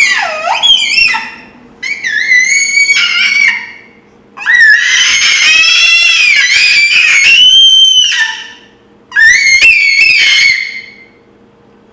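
Shrill, gliding screeching noises made on purpose as mock 'possessed' sounds, in four bouts, the third and longest lasting about three and a half seconds.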